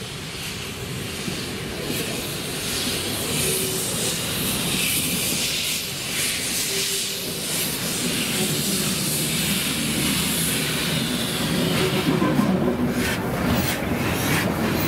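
Prussian T18 (class 78) tank steam locomotive passing slowly at shunting speed with its wagons, steam hissing over the running of the wheels on the rails. It grows louder as it comes closer, with a run of sharp clicks from the wheels near the end.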